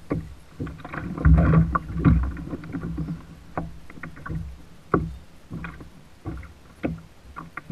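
Water lapping and slapping at the plastic hull of a Hobie kayak on light chop, with irregular sharp knocks and clicks from rod-and-reel handling during a fish fight. The water sound swells loudest about a second in.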